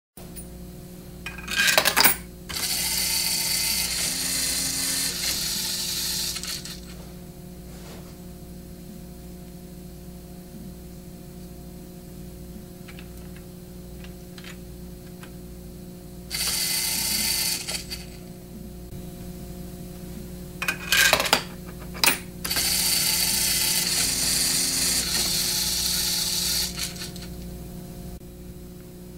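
LEGO Mindstorms NXT motors spinning a LEGO slot machine's three reels through their gears: a steady whirring for about four seconds, twice. Short clicks and rattles come before each spin.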